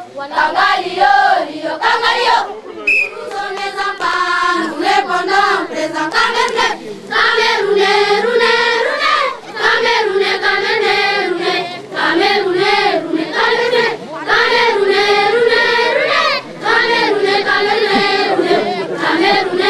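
A group of young voices singing a chant together in unison, in short repeated phrases with brief breaks between them.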